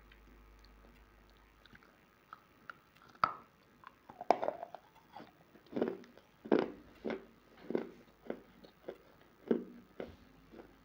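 Dry clay chunks bitten and chewed close to the microphone: a few small clicks, a sharp snap a little after three seconds in, then a steady run of crisp crunches, about one and a half a second.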